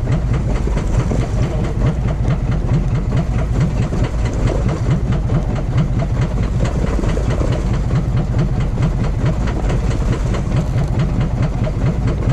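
Fishing boat's engine running steadily: a continuous low rumble with a fast, even pulse.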